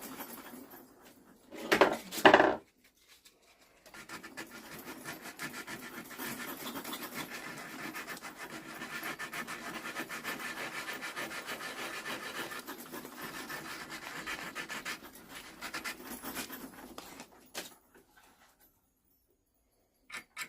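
Sandpaper rubbed by hand back and forth over the end grain of a wooden tack hammer handle, in steady repeated strokes that stop a few seconds before the end. Two brief loud knocks come about two seconds in, before the sanding starts.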